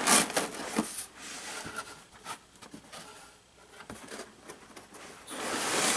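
Cardboard packaging rubbing and scraping as an inner cardboard tray is slid out of its box: a sharp scrape at the start, quieter rustles in the middle, and a louder, longer scrape near the end.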